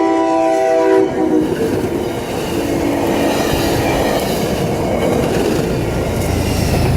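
Commuter train led by a Hyundai Rotem cab car: the cab car's horn chord of several steady notes cuts off about a second in, then the train's wheels rumble and clack on the rails as it passes.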